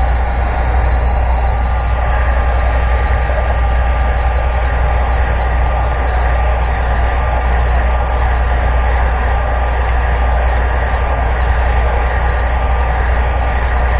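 Heat gun running steadily on its highest setting, a continuous blowing noise with a deep rumble, as it blows hot air onto a piece of PVC pipe.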